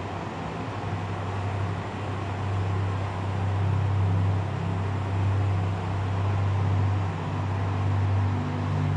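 Low, droning background music, with deep held notes that change every second or so over a soft hiss.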